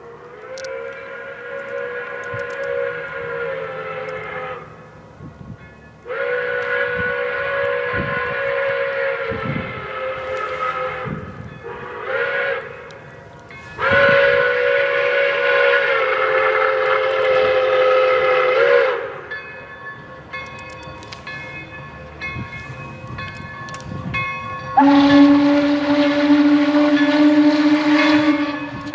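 Pere Marquette 1225's chime steam whistle blowing the grade-crossing signal: two long blasts, a short one and a long one, each sagging in pitch as it closes. Near the end a lower-pitched steady blast follows.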